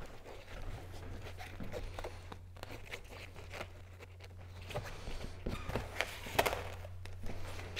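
Kayak skin fabric being handled and pulled during hand-stitching of the cover: irregular rustling and crinkling with scattered small clicks, over a steady low hum.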